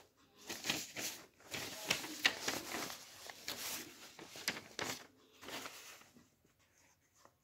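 Notebook paper rustling as a sheet is handled and laid over the page, a run of quick irregular rustles that die away about six seconds in.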